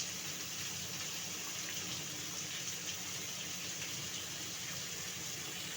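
Chopped onions frying in hot oil with spices in a pan, a steady, even sizzling hiss.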